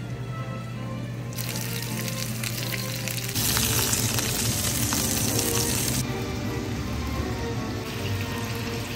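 Sea bass fillets frying in hot oil in a nonstick pan: a sizzle that starts about a second and a half in, is loudest in the middle and carries on more softly to the end, over background music.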